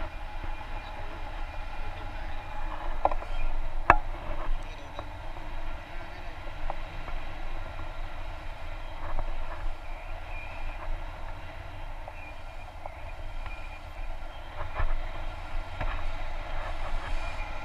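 Rushing wind from the paraglider's airspeed buffeting an action camera's microphone, a steady rumbling noise. A single sharp click sounds about four seconds in.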